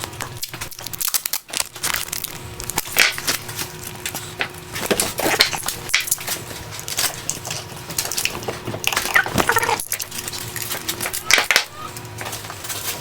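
Tape being pulled off the roll and wrapped around the plastic door lock actuator housing: short crackling rips several times among the clicks and knocks of the part being handled.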